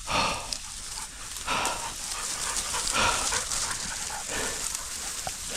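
Hard breathing, in slow surges about a second and a half apart, with a few faint short whines.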